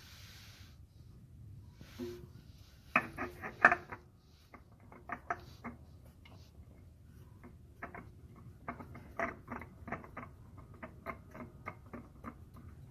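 Uneven runs of sharp mechanical clicks and ticks while an oil filter is threaded back onto a Dodge 360 small-block V8, with a louder cluster of clicks early on.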